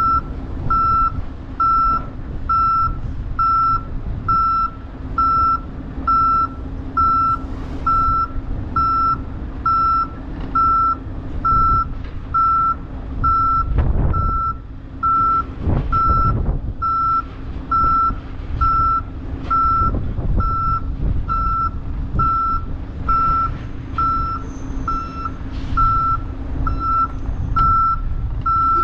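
Reversing alarm on heavy equipment beeping steadily, about one beep a second, over a running diesel engine, with a couple of heavier low rumbles near the middle.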